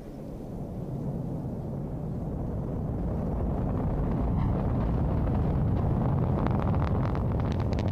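Ariane 5 rocket's solid boosters and Vulcain main engine in flight: a deep rumble that grows steadily louder, with crackling coming in over the last couple of seconds.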